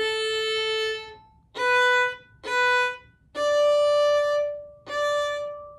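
Solo violin played very slowly in separate bow strokes, the opening measure of a fiddle tune: a long open A, two short B notes with the first finger down, then a long D with the third finger and a short D.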